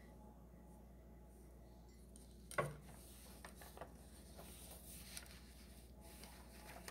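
Near silence: a faint low room hum with small handling noises, and one brief louder sound about two and a half seconds in.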